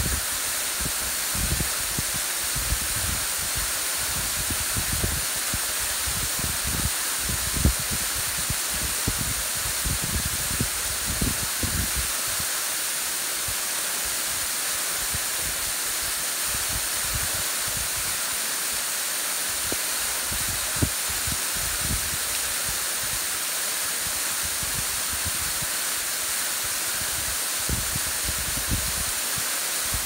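Small waterfall falling down a rock face and splashing into a shallow pool in a steady hiss. Wind gusts buffet the phone's microphone in low, uneven rumbles, easing off for several seconds in the middle and then returning.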